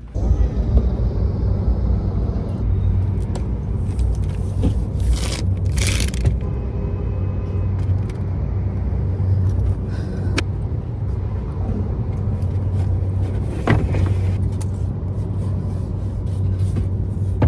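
Car engine idling with a steady low hum, heard from inside the car, while long wooden boards are slid in through the back, with scrapes and a sharp knock about two-thirds of the way through.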